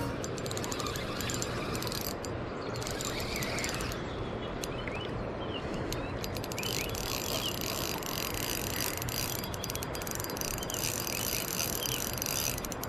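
Spinning reel being cranked against a fighting fish on light braided line, its gears giving a fast, steady run of ticking.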